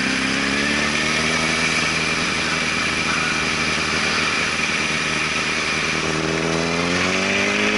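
2005 Honda CBR1000RR Fireblade's inline-four engine running at low road speed, its note steady and then rising from about six seconds in as the bike accelerates.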